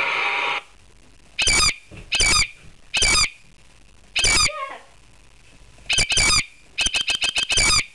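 Squawking bird calls played as a sound effect: four single harsh squawks about a second apart, then a quick run of shorter squawks near the end. A steady hiss-like noise cuts off suddenly before the first squawk.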